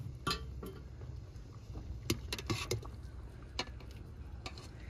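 A few sharp metallic clinks of a steel skimmer against a steel cooking pot and plate as boiled chicken pieces are lifted out of the water, three in quick succession a little past two seconds in, over a low steady rumble.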